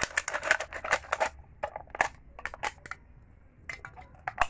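A thin aluminium beer can being cut open with a knife: crinkling metal and sharp clicks, thick for the first second or so, then scattered clicks.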